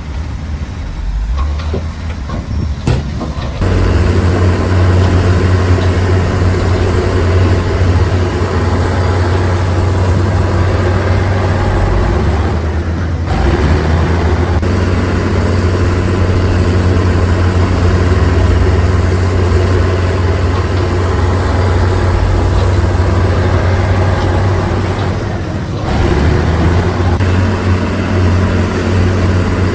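Heavy construction machine's engine running steadily with a deep hum, getting louder a few seconds in and briefly dipping twice.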